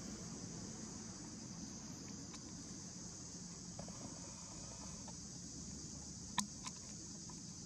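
Steady high-pitched insect chorus of the forest, with a couple of sharp clicks about six and a half seconds in.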